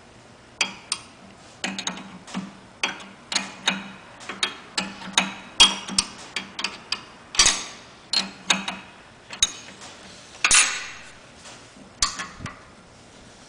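Irregular metal clicks and clinks, about one or two a second, from a wrench working a brass hose barb fitting on the chemical pump of a Panther truckmount, with a few louder clanks near the middle and toward the end.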